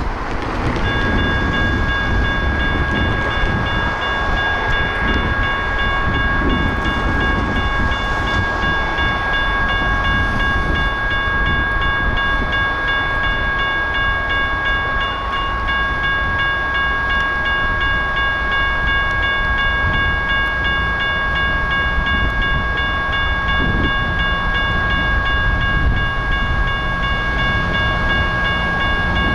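A railroad crossing's electronic warning bell switches on about a second in and rings steadily at a high pitch over a low rumble.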